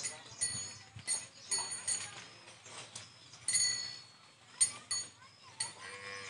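A puppy and an adult dog play-fighting, with a string of short, high-pitched yelps and squeals and a lower, drawn-out call near the end.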